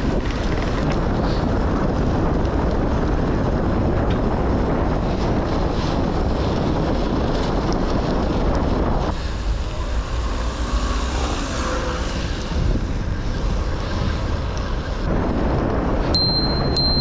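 Heavy wind buffeting on a handlebar-height action camera's microphones as a road bike rides through city traffic, with traffic noise beneath it. The wind is louder than it should be because the furniture-pad windscreens are badly stuck on. It eases for several seconds in the middle as the bike slows, and a high bell ring sounds near the end.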